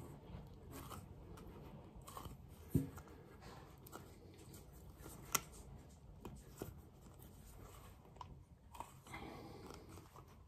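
Faint handling sounds of a rubber carburettor diaphragm being worked onto its piston by hand: light rubbing with a handful of small clicks and knocks, one louder a little under three seconds in.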